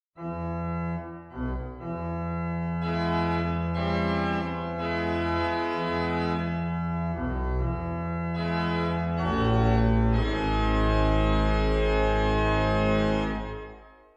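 Hauptwerk virtual pipe organ, the sampled organ of Haverhill Old Independent Church, playing a slow passage of sustained chords over deep pedal bass notes, the harmony changing every few seconds. The chords stop near the end and die away quickly.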